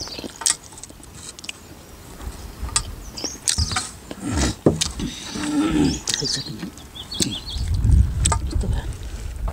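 Eating by hand from stainless-steel plates: chewing and lip-smacking with sharp clicks and taps on the steel, while small birds chirp now and then in the background. A low rumble swells near the end.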